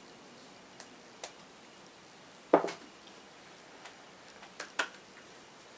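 Light clicks of a spinning pen knocking against the fingers, then a louder clatter as the pen lands on the board about two and a half seconds in. A few more light taps follow near the end.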